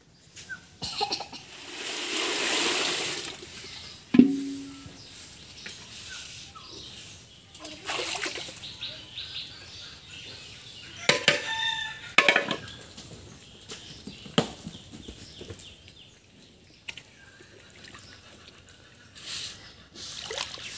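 Farmyard sounds: water poured and sloshing from a metal bowl into a large concrete feed trough, a sharp knock with a short ring about four seconds in, and a chicken calling about eleven seconds in.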